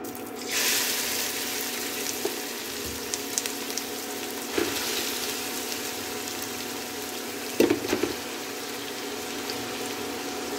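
Grated carrots sizzling as they go into hot melted ghee in a steel pan. The steady frying hiss starts about half a second in, with a few light clicks and a brief clatter about eight seconds in.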